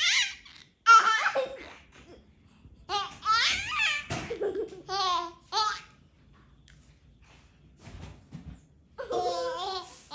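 A baby laughing in short, high-pitched bursts, with quiet gaps between them.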